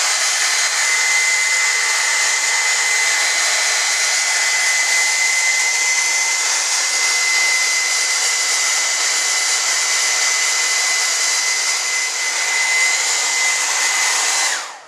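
Handheld hair dryer running steadily, a high whine over the rush of air, blowing on metal cake pans to warm them. It is switched off near the end and the whine drops away.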